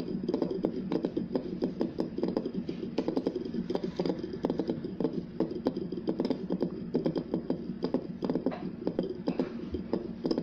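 Toy spinner spinning on a hard surface, giving a steady rapid rattle of small clicks.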